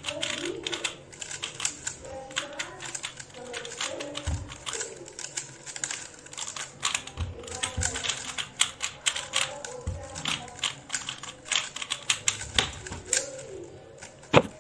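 Rubik's cubes being turned fast in a speedsolve: rapid, irregular plastic clicking and clacking, with faint background music underneath.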